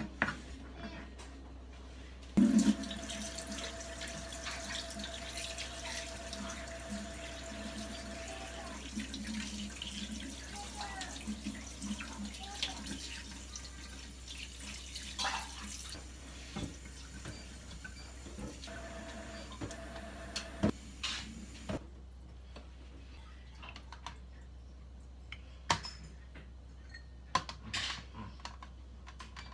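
Kitchen tap running into a stainless steel sink, with water splashing as sardines are rinsed under it. It comes on suddenly a couple of seconds in and stops about three-quarters of the way through. A few light knocks follow near the end.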